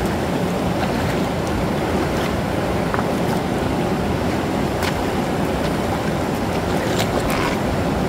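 Steady rush of falling water from a waterfall pouring into a rock pool, with a few brief splashes from feet wading in the shallows.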